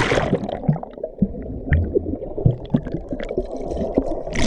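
Muffled underwater rumble and bubbling, heard through a camera submerged in the sea, with a splash as it goes under at the start and again as it comes back up near the end.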